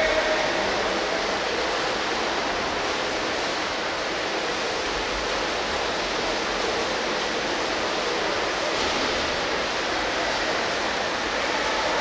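Steady rush of splashing water from swimmers racing butterfly in an indoor pool.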